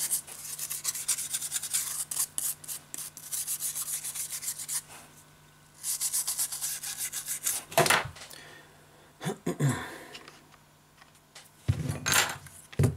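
A plastic spudger scraping old adhesive off a smartphone's display midframe in quick, repeated strokes, with a pause about five seconds in. Near the end come a few short, louder handling sounds as the frame is moved.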